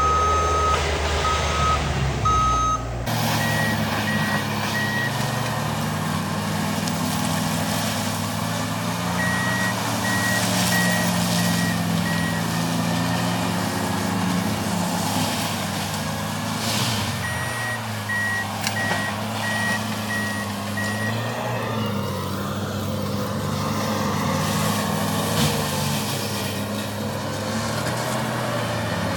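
Wacker Neuson ST45 track loader's diesel engine running steadily while its backup alarm beeps in several spells as the machine reverses.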